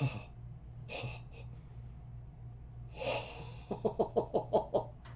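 A person's excited breaths and gasps, ending in a quick run of about seven short breathy pulses, over a steady low electrical hum.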